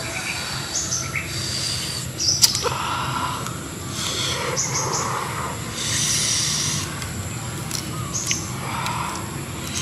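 Mouth sounds of someone eating grilled lobster, soft chewing and sucking, with a single sharp click about two and a half seconds in. Birds chirp briefly now and then in the background.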